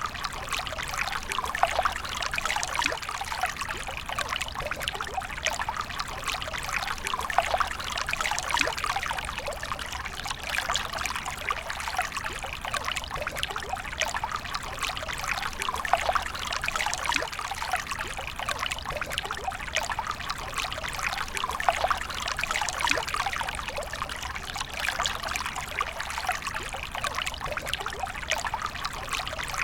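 Water pouring and trickling steadily, an unbroken splashing flow of many small droplets.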